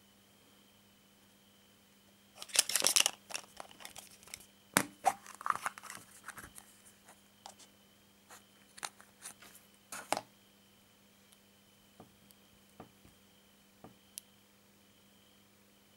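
Hands crinkling a wrapper and opening a plastic surprise-egg capsule, then handling the small plastic toy figure inside: a loud crackle about two and a half seconds in, a run of crinkles and sharp plastic clicks until about ten seconds in, then a few faint clicks.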